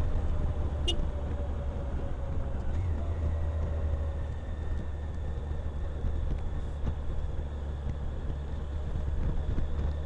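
Motorcycle engine running steadily, heard from on board as a constant low drone under an even rush of noise, with one short sharp click about a second in.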